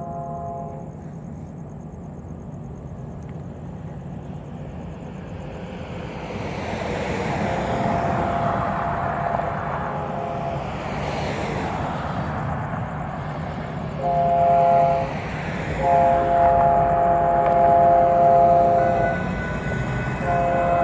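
Union Pacific freight locomotive horn sounding a chord in separate blasts as the train approaches the crossing. One blast is ending just after the start, then comes a long blast, a short one, another long one, and a new blast begins near the end. Under them the rumble of the oncoming train grows louder.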